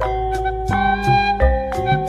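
Background instrumental music: a melody of held notes changing every half second or so over a steady beat.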